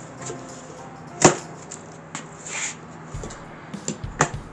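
Plastic packing straps on a cardboard box being cut with a knife and pulled free: a sharp snap about a second in, a short scraping rustle of strap across cardboard, then lighter knocks and another snap near the end.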